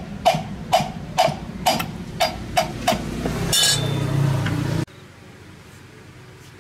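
Hammer blows on metal, about two a second, each ringing briefly, around eight strikes. They are followed by a louder, steady, rough noise for about a second and a half that cuts off suddenly, leaving only a low background hiss.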